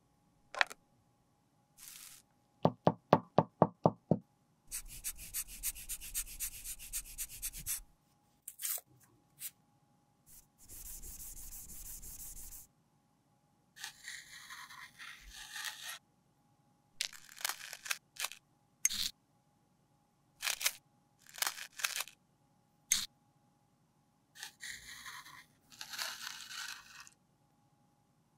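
Pressed powder highlighter being scored and scraped in its metal compact with a metal tool, in many short scratching strokes. Clicks and quick taps of the compact being handled come in the first seconds.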